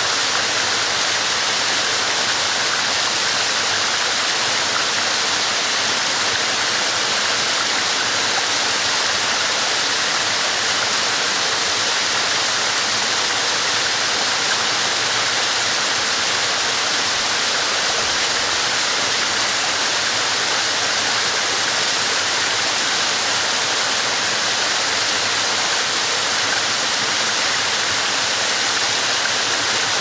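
Small waterfall splashing down over rocks: a steady, unbroken rush of falling water with a strong hissing top.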